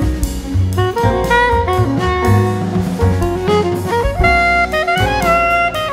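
Jazz background music with a saxophone playing the melody over drum kit and bass.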